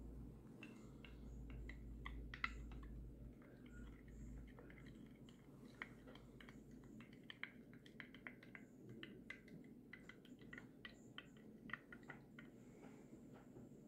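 Wooden stirring stick clicking and tapping against the inside of a small drinking glass as a drink is stirred: many faint, irregular clicks.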